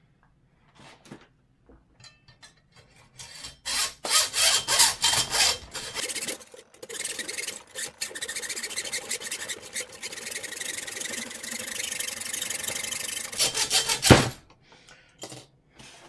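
Hand hacksaw cutting a hard steel pick blank clamped in a vise. Scraping strokes begin about three seconds in and merge into a dense, continuous rasp. A single loud knock comes near the end.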